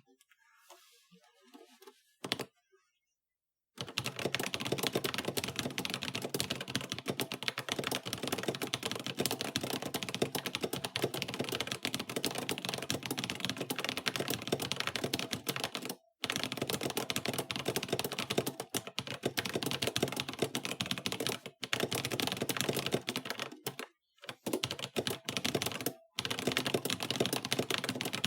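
Fast typing on a GK61 mechanical keyboard with pre-lubed Holy Panda tactile switches in an aluminum case: a dense, rapid stream of key clicks with a few short pauses. It starts after about four seconds of near silence.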